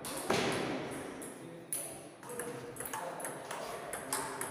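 Table tennis ball striking paddle and table: a few sharp clicks, the loudest about a quarter second in, with more about a second and a half in and near the end.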